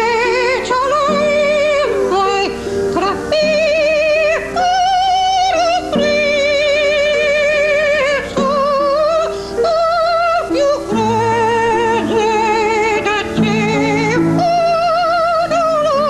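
Soprano singing operatically, holding high notes with a wide vibrato and breaking briefly between phrases, over instrumental accompaniment.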